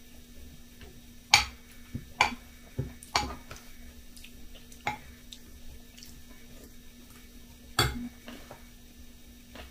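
Metal spoon clinking against a ceramic bowl while eating cereal with milk: a handful of irregular sharp clinks, the loudest about a second and a half in and again near the end, over a faint steady hum.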